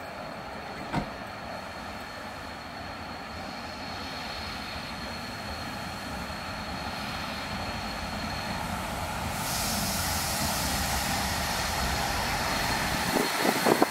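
DR class 86 steam tank locomotive running a train into a station, its running noise growing steadily louder as it nears. A hiss joins about two-thirds in, and wheels clatter as it passes close near the end, over a thin steady high whine.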